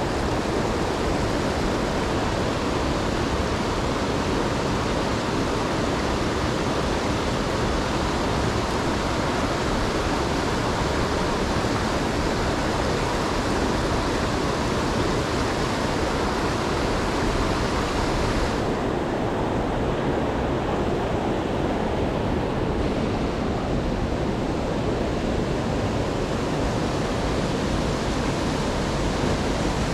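Steady rushing of a rocky mountain stream. About two-thirds of the way through, the hiss abruptly loses its upper end and turns duller.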